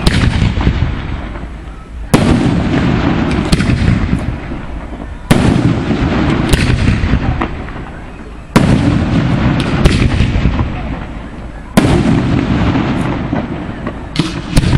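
Fireworks display: shells bursting with a loud bang about every three seconds, each bang followed by crackling and rumbling that slowly fades before the next.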